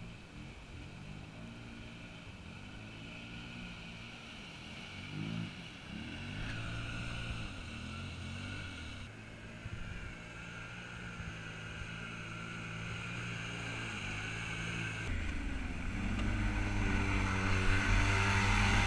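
Off-road vehicle engines revving in repeated bursts as four-wheelers and a side-by-side churn through mud. Far off at first, they get steadily louder near the end as a Polaris RZR slides past close by, throwing mud.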